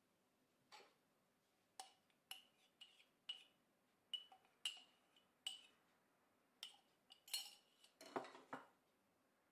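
Light, irregular clinks and taps of kitchenware as a cup and a plastic mixing bowl are handled while ingredients go in: about fifteen sharp knocks, some ringing briefly, with a cluster of louder ones near the end.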